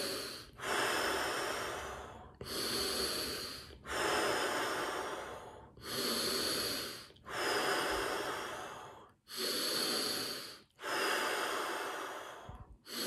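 A man taking deep, loud breaths in and out, one straight after another, a breath in or out about every one and a half seconds, four full breaths or so. These are the deep breaths that open a round of a breathing exercise, before the breath is held.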